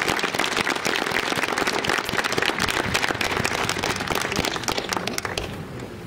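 Audience applauding, a dense crackle of many hands clapping that dies away near the end.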